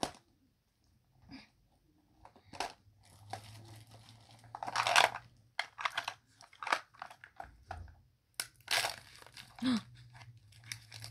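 A Mini Brands plastic capsule ball being pulled apart and the printed plastic wrapping inside being crinkled and torn, in scattered rustles and crackles, loudest about halfway through and again near the end.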